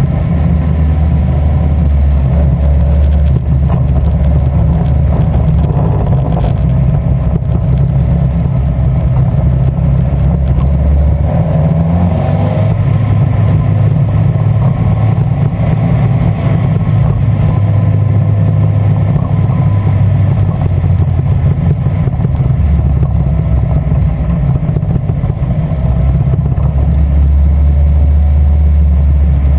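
Ford Zetec four-cylinder engine of a Westfield sports car running with a misfire. It runs loud and continuous, its low pitch shifting a few times.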